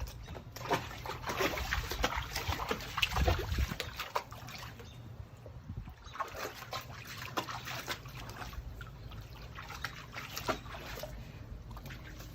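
Water splashing and trickling in a foldable PVC dog bath pool, in irregular bursts that are busiest in the first few seconds and again later on.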